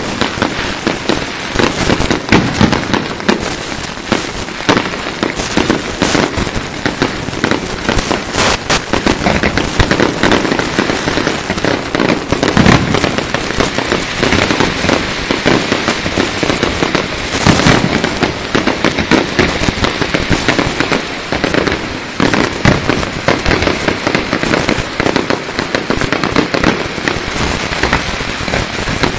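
Fireworks display: a dense, unbroken barrage of aerial shells and fountains going off, with rapid overlapping bangs and crackling throughout.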